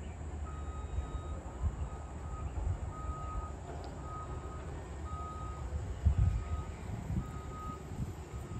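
A vehicle's reversing alarm: one steady electronic tone beeping about once a second, heard over a low rumble.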